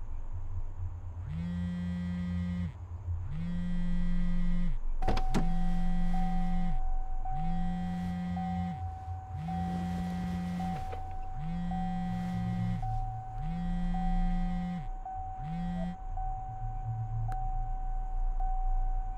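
A mobile phone vibrating against a hard surface for an incoming call: eight even buzzes of just over a second each, one every two seconds. About five seconds in there is a click, then a steady high tone with short regular breaks joins, over a low rumble.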